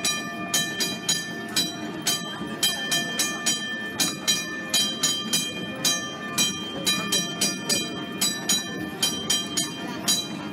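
A horse-drawn streetcar's bell clanged over and over, about three strokes a second, each stroke ringing on, over the low rumble of the car rolling.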